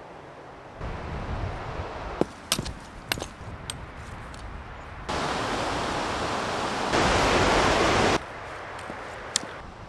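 Outdoor ambience: a steady rushing noise with a few sharp clicks about two to three seconds in. The rushing grows louder in abrupt steps about five and seven seconds in, then falls back suddenly just after eight seconds.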